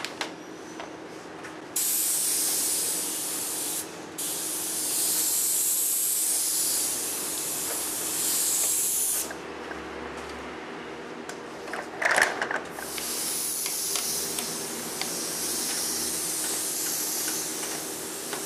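Paint spray gun hissing as it sprays coating onto a metal roof, in long bursts: it starts about two seconds in, breaks off briefly near four seconds, stops near nine and starts again about thirteen seconds in. A steady low hum runs underneath, and a short loud clatter comes near twelve seconds.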